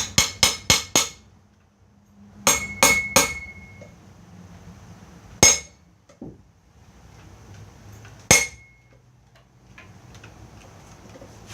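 A hammer striking steel parts: a quick run of about five knocks, a pause, three more blows with a short metallic ring, then two single blows several seconds apart.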